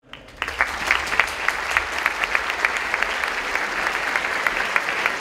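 Audience of students clapping in a lecture hall, starting about half a second in and then holding steady.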